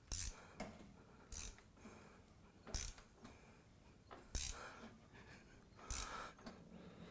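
Engine crankshaft being turned over by hand with a wrench on the crank bolt: short, faint metallic clicks and clunks about every one to one and a half seconds. The engine is being rotated to check the timing-belt setting.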